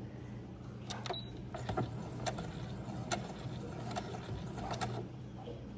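Domestic electric sewing machine stitching slowly in reverse to backstitch: a low steady hum with irregular sharp clicks of the needle and mechanism.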